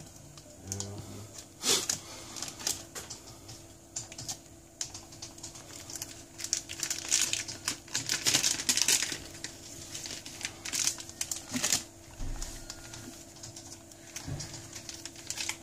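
Plastic opening pick clicking and scraping along the edge of a Huawei P20 lite's screen and frame as the display is pried loose, in irregular bursts of small taps that are busiest about halfway through.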